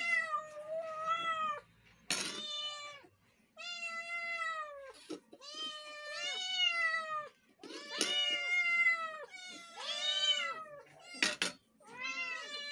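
Several cats meowing one after another, drawn-out meows of about a second each, some overlapping. Two short rasping sounds come about two seconds in and again about eleven seconds in.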